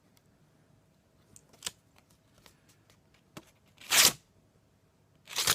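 Balisong knife blade slicing through a sheet of paper: two quick, sharp swishes about a second and a half apart, with a few faint clicks before them.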